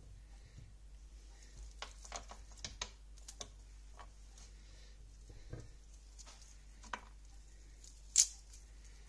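Raw onion slices being pulled apart into rings by hand and dropped onto a stone-coated grill pan: scattered light taps and clicks, with one sharper click about eight seconds in.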